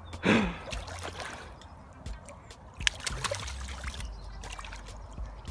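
Water splashing as a hooked carp thrashes at the surface beside a landing net, with a loud burst of splashing near the start and more sharp splashes around the middle.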